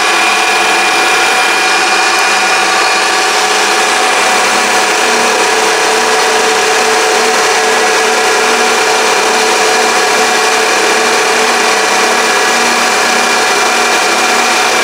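Mini lathe running steadily: a constant motor whine with several steady tones over an even hiss.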